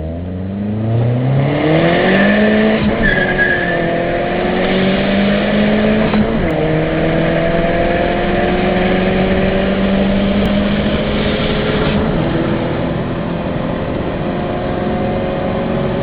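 Opel Calibra's petrol engine at full throttle, pulling hard through the gears. The pitch climbs quickly, drops at upshifts about three seconds and six and a half seconds in, then rises slowly through a long pull in a higher gear.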